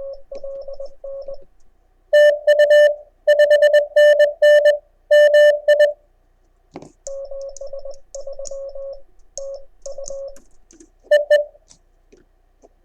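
Morse code (CW) tones from an amateur radio station, keyed dots and dashes on a single pitch. A fainter station sends at the start and again in the middle, alternating with a louder, harsher tone that sends for about four seconds and once more briefly near the end.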